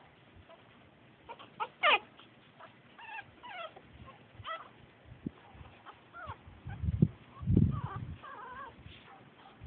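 Pug puppies yelping and squeaking while playing: a sharp falling yelp about two seconds in, then short high-pitched squeaks and whimpers on and off. Two low thumps come a little past the middle.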